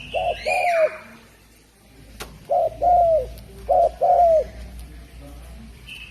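Spotted dove (derkuku) cooing: three low phrases, each a short coo followed by a longer one that drops in pitch at the end, about a second and a half apart. A higher falling chirp from another bird overlaps the first phrase, and there is a single sharp click in the middle.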